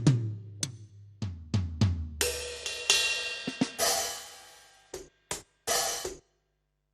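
Electronic drum kit played through a dbdrums db10 V3 sound module: a tom fill stepping down in pitch, then cymbal crashes ringing out, a few short hits, and the sound cuts off to silence about six seconds in.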